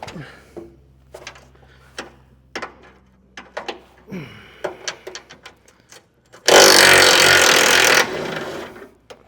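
Scattered clicks and knocks of fasteners being worked under a car's bumper, then a power tool runs loudly for about a second and a half, about six and a half seconds in, and trails off.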